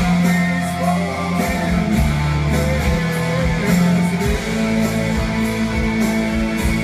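Rock music: electric guitar playing over deep, sustained bass notes.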